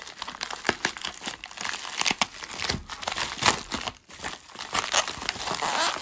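Plastic mailer bag and bubble wrap crinkling and rustling as hands pull them open, in irregular crackles with a brief lull about four seconds in.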